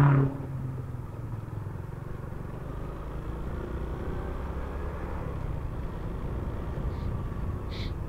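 Honda Supra X125 FI motorcycle's single-cylinder four-stroke engine running steadily while riding, with road and wind noise, heard from the bike itself. There is a brief louder swell right at the start.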